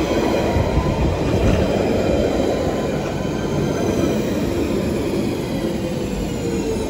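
London Underground Central Line 1992 Stock train running along the platform, with steady wheel-on-rail noise and its motor whine gliding slowly down in pitch.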